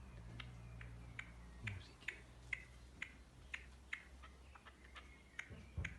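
A bird giving short, sharp call notes over and over, about two a second, faint.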